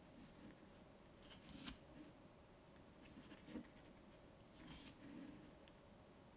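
Faint rustles and flicks of paper as the pages of a small paperback photobook are turned by hand, a few soft page sounds over quiet room tone.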